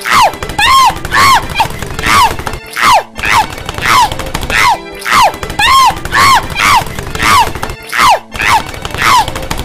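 A cartoon woman's voice crying out over and over in short, high-pitched yelps that fall in pitch, about two to three a second, with brief breaks every few seconds: the cries of a cartoon character tumbling down a staircase.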